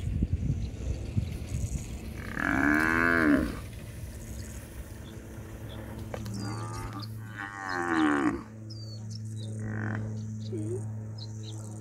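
African buffalo cow bellowing in distress while lionesses hold on to her: two long, wavering bellows, the first about two seconds in and the second about six seconds in.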